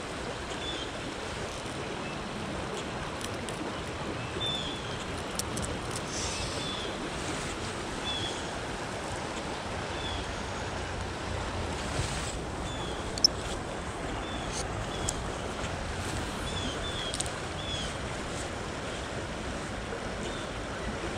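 Steady rush of a shallow river running over rocks in a riffle, with faint short high chirps recurring every second or two and a few light clicks.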